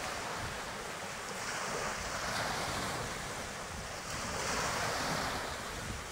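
Sea waves washing in a steady rush that swells and eases every couple of seconds, with wind buffeting the microphone.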